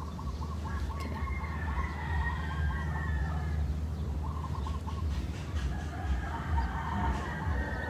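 Chickens calling: a quick run of clucks in the first couple of seconds and another short run midway, with longer held calls between, over a steady low rumble.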